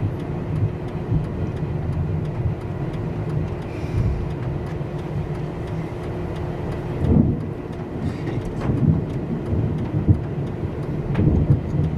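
Steady low rumble of road and engine noise heard inside a moving vehicle, with a faint constant hum and a couple of louder low swells partway through.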